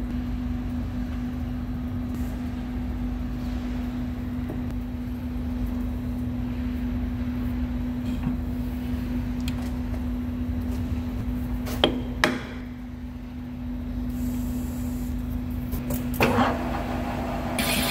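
A machine running with a steady hum over a low rumble, two sharp clicks about twelve seconds in, and a short clatter near the end.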